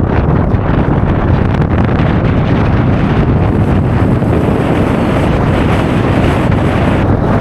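Wind buffeting the camera's microphone: a loud, steady rumbling rush of noise.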